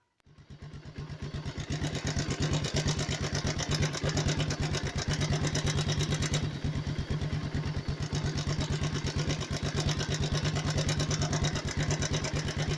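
Motorcycle engine idling with a fast, even clatter from a slack timing chain, the chain noise that calls for the tensioner to be adjusted. The sound comes in over the first two seconds, then holds steady.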